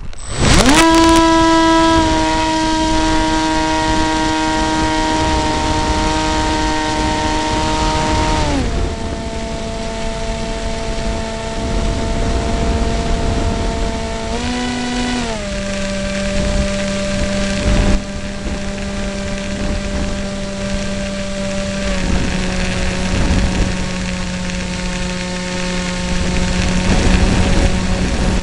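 EasyStar model plane's electric motor and pusher propeller whining, heard from on board: it spins up sharply about half a second in and holds a high steady pitch, then steps down to a lower pitch about a third of the way through, rises briefly in the middle, and settles lower again, over a rushing hiss of air.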